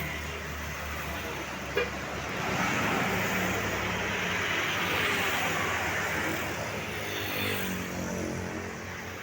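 Road traffic: a motor vehicle's engine runs steadily while a passing vehicle's noise swells and then fades over several seconds. There is one short click about two seconds in.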